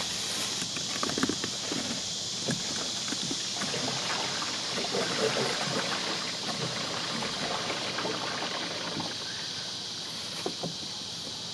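Gray water gurgling and running down a corrugated RV sewer hose into a Camco Rhino portable tote tank as the hose is lifted to drain it. Scattered rustles and knocks come from the hose being handled, over a steady high hiss.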